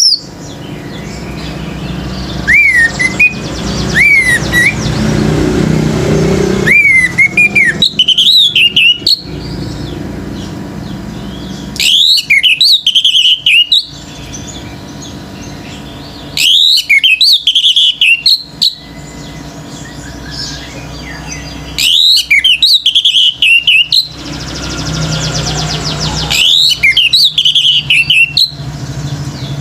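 Orange-headed thrush singing. A few single rising whistles come first, then loud two-second bursts of rapid, varied notes that repeat about every four to five seconds.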